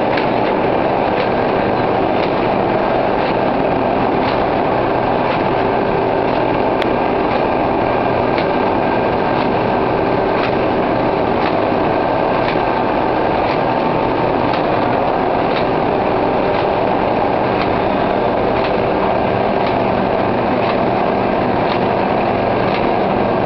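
Automatic square-bottom paper bag making machine running, a steady mechanical noise with faint regular clicks about once a second.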